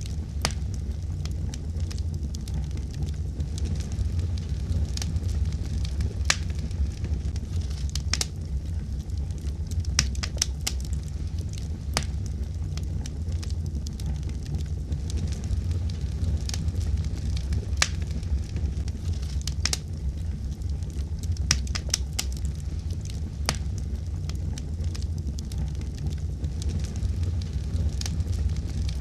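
Wood fire burning steadily with a low rumble, and sharp crackles and pops at irregular intervals.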